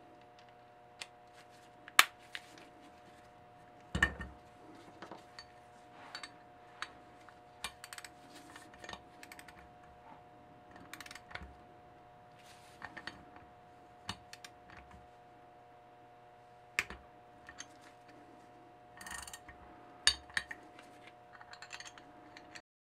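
Socket ratchet and wrench working the sprocket bolts on a moped rear hub: scattered metal clicks and clinks, short runs of ratchet ticking, and a few sharper knocks of tool on metal.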